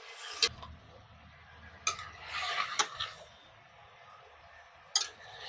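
Chicken pieces being stirred in hot sesame oil in a pressure cooker: a spoon scraping around the pot and clinking against its side four times, with light sizzling.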